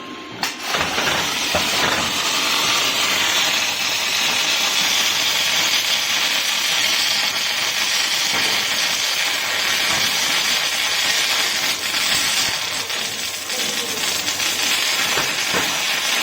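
Robotic arc welding: the welding arc starts about half a second in and then burns steadily with a continuous crackling hiss.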